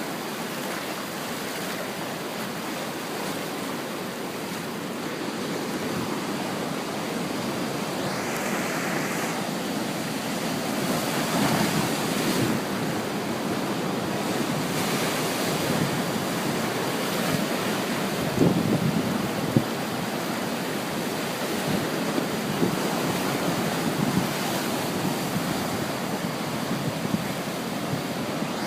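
Ocean surf: waves breaking and washing in continuously, with surges as waves break and wind buffeting the microphone.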